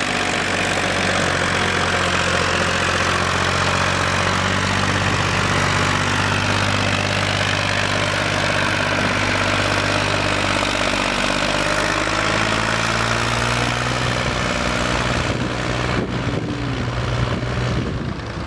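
Farm tractor's diesel engine running steadily while hauling a loaded trolley of sand, the front wheels lifting under the load. The engine sound fades somewhat near the end as the tractor moves away.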